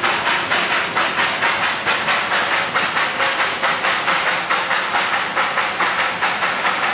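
British-built 2 ft narrow-gauge steam locomotive of the Darjeeling Himalayan Railway chuffing in a steady rhythm of about three beats a second, with a continuous hiss of escaping steam.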